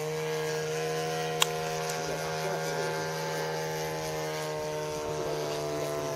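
Engine of a radio-controlled de Havilland DH.60 Moth model floatplane droning steadily in flight, its pitch nearly even and easing down slightly. A single sharp click about a second and a half in.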